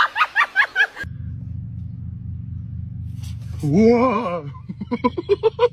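People laughing: a run of quick "ha-ha" bursts, broken off about a second in. After that comes a low steady hum, then a "whoa" and another burst of quick laughter that rises in pitch near the end.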